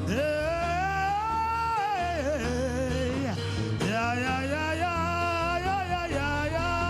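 Gospel worship singing: a single voice holding long, sliding notes over steady instrumental backing with a sustained bass.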